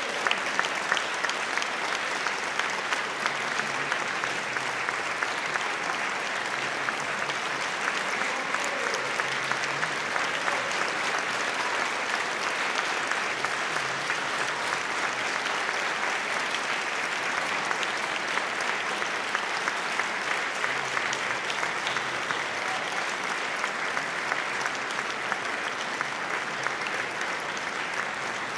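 Large concert-hall audience applauding steadily, a dense clatter of many hands clapping.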